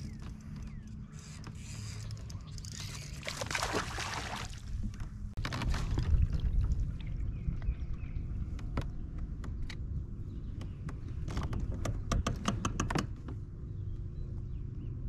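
Wind buffeting the microphone on a moving fishing kayak. A low rumble swells about halfway through, faint steady hums sit underneath, and a quick run of sharp clicks and knocks comes in the second half.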